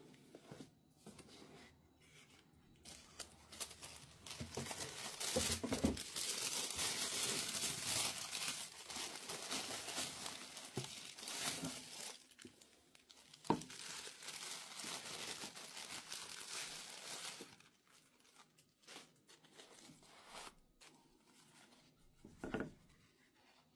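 Tissue paper crinkling and rustling as shoes are unwrapped from a shoe box, dense for most of the stretch and then dropping to quieter handling. A sharp tap comes midway and another near the end.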